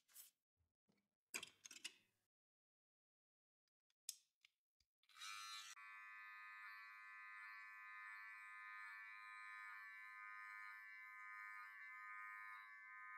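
A few brief rustles of the barber's cape, then a gold BaBylissPRO GoldFX cordless hair clipper switched on about five seconds in, running with a steady high-pitched hum as it cuts with a guard along the side of the head.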